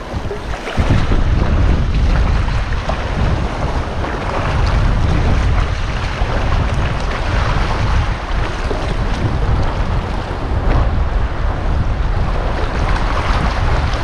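Wind buffeting the microphone with a heavy low rumble, over waves washing on the shore; it dips briefly at the start and then holds steady from about a second in.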